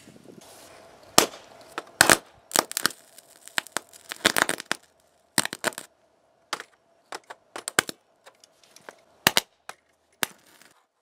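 Electric arcs snapping and crackling in irregular bursts as a copper rod fed by four 12 V lead-acid batteries in series (48 V) is touched onto a laptop's circuit board, short-circuiting it.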